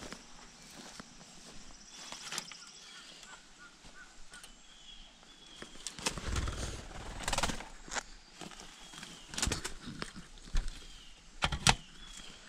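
Rustling and scattered knocks from a netted quail-pen door being unclipped and opened and someone stepping through, with faint short bird chirps repeating in the background.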